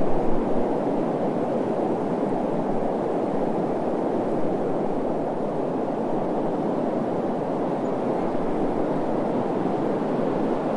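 Steady rushing wind in a looped ambience bed, a dense low-to-mid noise with no tones, swelling briefly louder at the very start.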